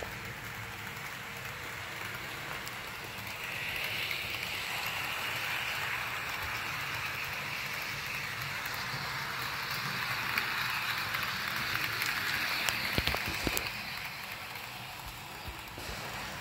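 HO scale model diesel locomotive running around the layout track with three cabooses in tow: a steady whirring, rattling hiss of motor and wheels on the rails. It swells louder through the middle as the train passes near, with a few sharp clicks late on.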